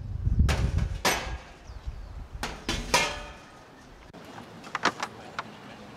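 Stainless-steel stockpots knocking against a stainless-steel counter as they are set into its openings, each knock clanking with a metallic ring. There are several knocks in the first three seconds, over a low rumble, then a few lighter clicks near the end.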